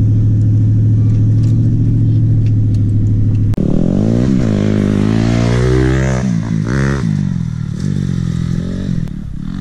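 Ford F-150 pickup's engine running at a steady drone, heard from inside the cab. About three and a half seconds in this gives way to a dirt bike's engine revving, its pitch rising and falling over and over as it rides the trail.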